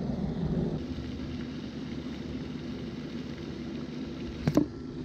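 Steady low outdoor rumble, with two sharp knocks close together about four and a half seconds in.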